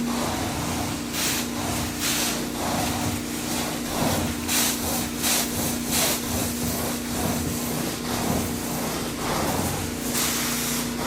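Carpet-cleaning suction machine running with a steady motor hum, with repeated short hissing strokes as the cleaning wand is drawn back and forth over the carpet.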